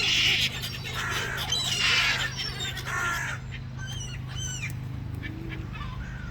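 Several gulls calling: harsh, raspy squawks through the first three seconds, then a run of short, sharp yelps that bend up and down in pitch, over a steady low hum.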